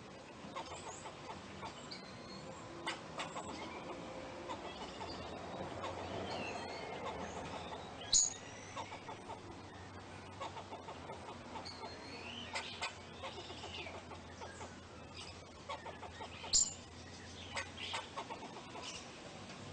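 Squirrel calling: a steady run of short, clucking chuck calls, with two louder, sharp high squeaks about eight seconds in and again near the end, and chirps mixed in.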